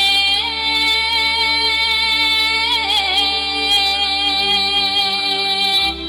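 A woman sings a Bulgarian folk song through a microphone and loudspeakers. She holds long notes, with a wavering ornamented turn about halfway through, over a steady instrumental backing.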